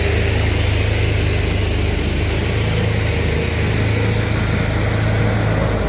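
Heavy diesel vehicle engine running steadily with a deep, even hum.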